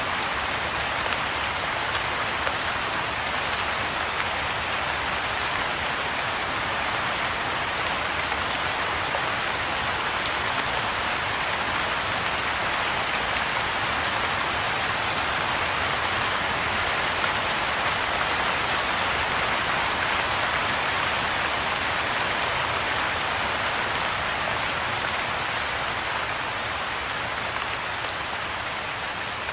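Soft rain falling steadily on a pool of water, an even hiss of many drops striking the surface, easing a little near the end.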